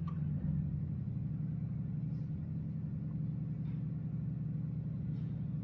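Steady low background hum, with a few faint light ticks.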